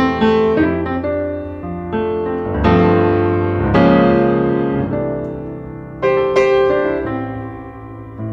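Background piano music: slow chords struck and left to fade.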